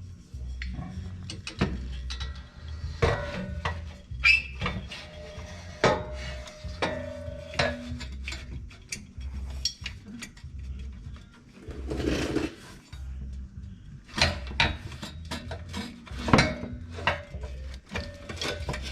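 Hand tools and metal parts clinking and clicking against metal fittings, with a brief rushing noise about twelve seconds in. Background music with a steady low beat runs underneath.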